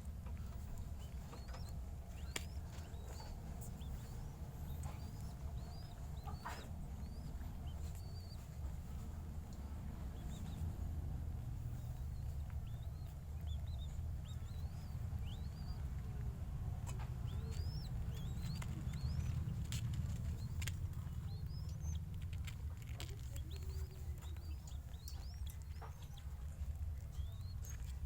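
Spotted dove chicks giving thin, short rising squeaks again and again, begging while being hand-fed, over a steady low rumble and a few sharp clicks.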